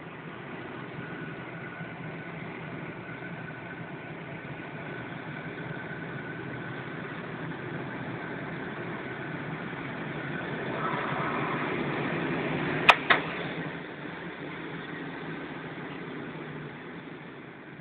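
Steady rush of air past a glider's canopy in flight. It grows louder about ten seconds in, with two sharp clicks about thirteen seconds in, then eases off again.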